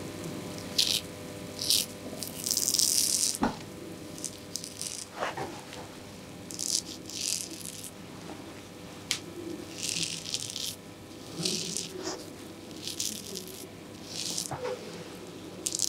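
Straight razor scraping through lathered beard stubble on a man's cheek in about a dozen short, irregular rasping strokes, the longest about three seconds in. A couple of light clicks are heard.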